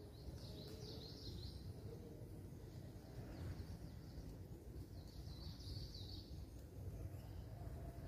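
Quiet outdoor ambience with a low steady rumble, and a small bird singing twice: a high, quickly warbling phrase of about a second and a half near the start and again about five seconds in.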